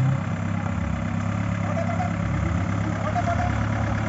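Modified Mahindra off-road jeep's engine running steadily at low revs as the jeep crawls through a deep rut.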